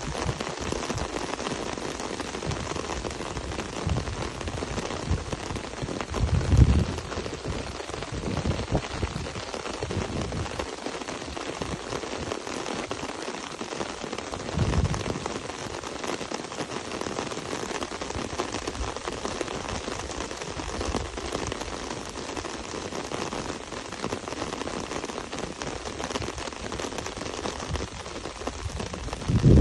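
Heavy rain falling steadily, with gusts of wind hitting the microphone as a few louder low bursts: about six seconds in, around fifteen seconds, and at the very end.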